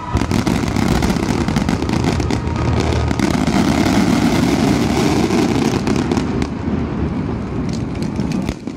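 A rapid barrage of aerial fireworks shells bursting, with many sharp reports and crackles overlapping into a continuous rumble. It eases off slightly near the end.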